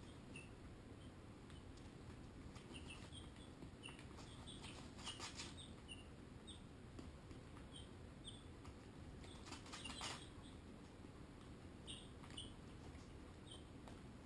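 Barred Rock and Ameraucana baby chicks peeping faintly, short high cheeps scattered through, with two brief rustles in the wood shavings about five and ten seconds in.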